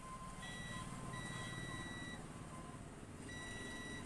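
Digital multimeter's continuity beeper sounding three times, the middle beep about a second long, as the probes touch across a power transistor on a battery charger's board: the beep marks a short, which the repairer reads as one shorted point on the transistor.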